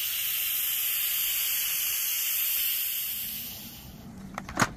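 Electric pressure cooker venting steam through its release valve with a steady hiss after cooking, a quick pressure release. The hiss dies away about three seconds in as the pressure runs out, and there is a sharp click near the end.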